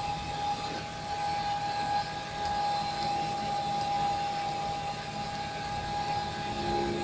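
A steady machine hum with a constant high whine, and a few faint clicks.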